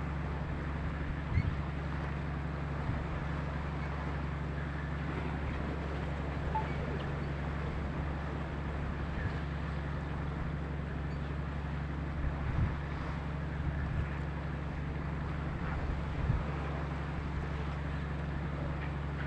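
A boat's engine running with a steady low drone, over a rush of wind and water. Wind buffets the microphone in a few brief gusts.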